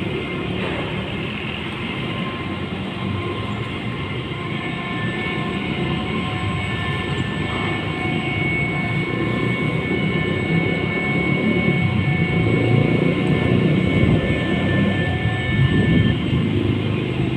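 A car ferry's engines and machinery running with a steady low rumble and faint high whining tones while the ship berths, growing louder in the second half.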